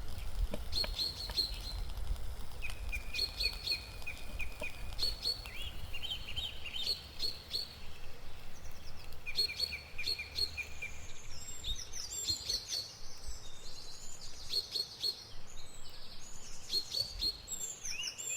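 Songbirds singing in short, repeated chirping phrases, several voices overlapping. A low rumble sits under them for the first half.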